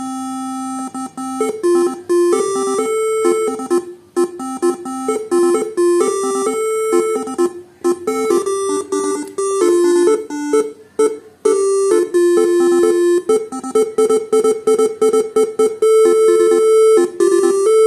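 Faniatech R3 Basuri telolet horn module playing one of its preset tunes: a fast melody of bright, horn-like notes hopping between a few pitches. It opens with a held low note, runs on in quick short notes, and holds one higher note near the end.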